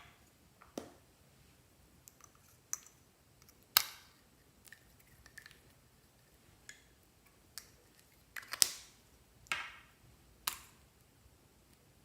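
Clear slime being handled: a dozen or so scattered sharp sticky clicks and snaps, the loudest about four seconds and eight and a half seconds in.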